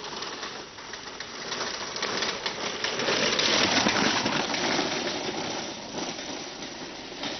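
Homemade unpowered gravity kart rolling down a dirt track, its wheels and frame rattling and clattering over the ground. It gets louder as it passes about three to four seconds in, then fades.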